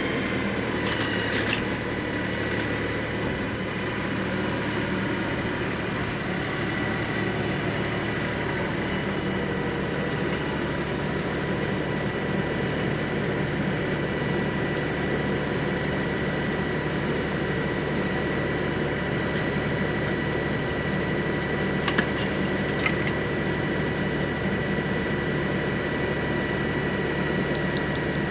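Tractor diesel engine running steadily, with a thin steady whine over it and two sharp clicks about three-quarters of the way through.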